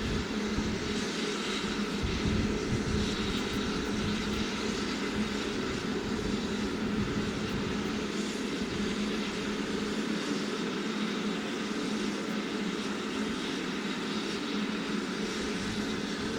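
Steam locomotive working a train: a steady rushing rumble, heavier in the first few seconds.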